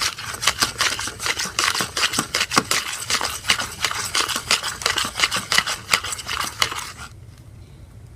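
A mixing tool stirring sticky PVA face-mask slime with borax activator in a bowl, making rapid clicks and scrapes against the bowl as the slime thickens. The stirring stops suddenly about seven seconds in.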